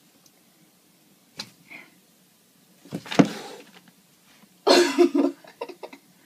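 Cat hissing and spitting in sharp bursts, a loud one about three seconds in and a longer, louder one near five seconds, as it fends off a stuffed toy.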